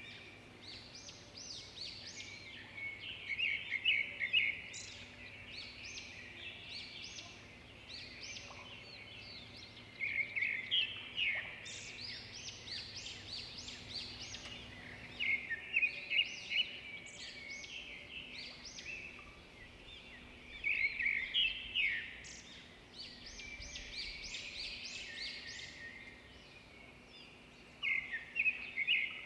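Outdoor birds chattering and calling: rapid, busy notes that swell into louder bursts every few seconds, with quieter calling in between.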